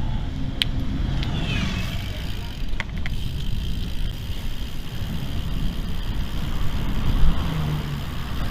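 Steady low rumble of gravel-bike tyres rolling over a gravel trail, mixed with wind on the microphone, with a few sharp clicks and rattles from the bike in the first few seconds.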